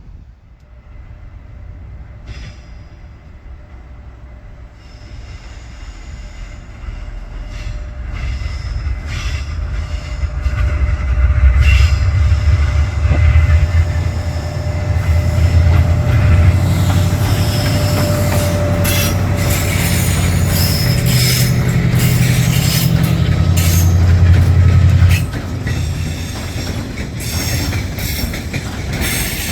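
A locomotive-hauled train approaching and passing close by. A loud, low engine drone builds up and drops off suddenly about 25 seconds in. Over it come many sharp clicks of wheels over rail joints and the squeal of wheels on the rails.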